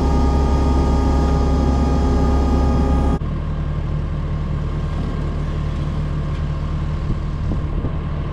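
Kubota SVL75-2 compact track loader's diesel engine running steadily, loud from inside the cab. About three seconds in, the sound drops suddenly to a quieter steady idle heard from outside the machine.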